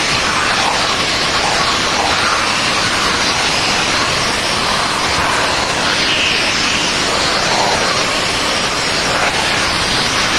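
VacuFlo 560 central vacuum running, a steady loud rush of air through the hose as it vacuums the car.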